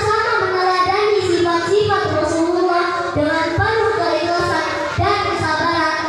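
A young girl singing into a microphone, with long held notes that waver slightly in pitch.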